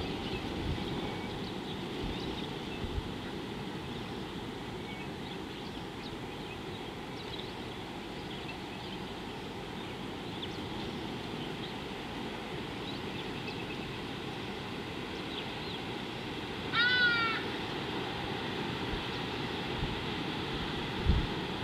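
Open-air waterhole ambience: a steady low rumble with faint scattered bird chirps. About three-quarters of the way through, one loud pitched call lasting about a second from an unseen animal, and a brief low thump just before the end.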